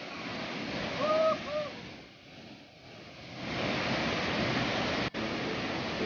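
A waterfall pouring into a pool, a steady rush of falling and churning water. About a second in, two short hooting notes from a voice sound over it; the rush dips quieter for about a second and comes back louder.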